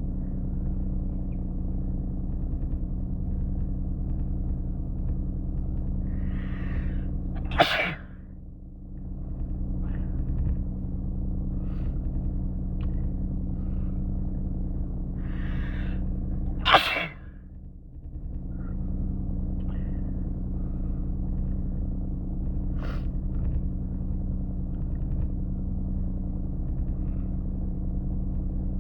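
A person sneezing twice, about nine seconds apart, each sneeze preceded by a drawn-in breath, over a steady low rumble.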